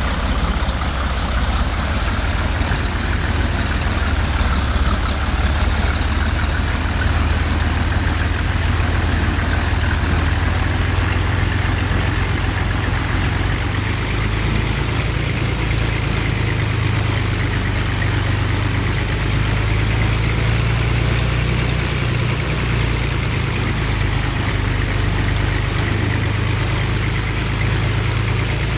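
Single-engine Cessna Stationair's piston engine and propeller droning steadily, its pitch wavering slowly.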